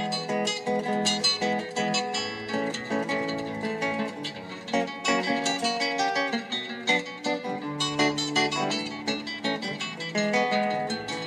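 Instrumental music on a plucked-string guitar, picking a fast, steady run of single notes.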